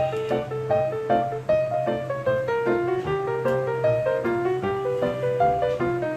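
Background piano music: a quick melody of short notes played at an even pace.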